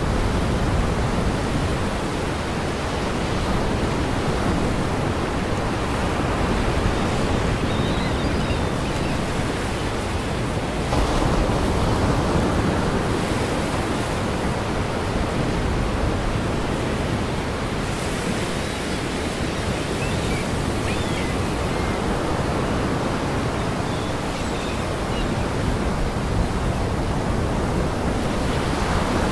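Gale-force wind and lake waves breaking against a pier and breakwater: a steady rushing noise that swells now and then with the gusts and surf.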